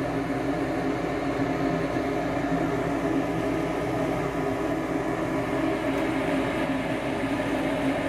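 Draft inducer motor of a Goodman 95-plus gas furnace running with a steady hum. This is the start of the ignition sequence after a reset: the inducer runs while the furnace waits for the pressure switch to close.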